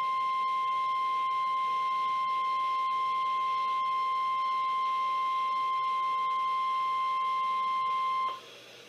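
NOAA Weather Radio warning alarm tone: a steady, single-pitch 1050 Hz tone signalling that a warning message follows. It cuts off suddenly about 8 seconds in, leaving faint radio hiss.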